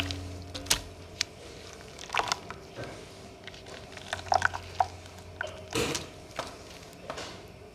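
Scattered soft clicks and small wet squelches as fingers work through crumbled, soaked shapes in a metal bowl of water, with bubbles popping on the surface.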